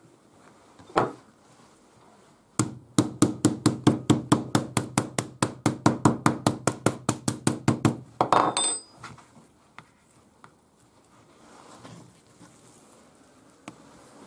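Metal meat mallet pounding a veal fillet on a plastic cutting board to flatten and tenderize it: a single blow about a second in, then a quick, even run of blows, about six a second, for some five seconds. It ends in a louder metallic clatter with a brief ring.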